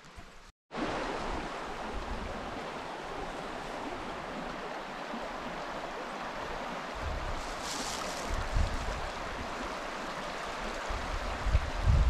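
Shallow rocky creek running over stones, a steady rush of water that starts abruptly after a moment of silence. In the second half, uneven low rumbles of wind buffet the microphone.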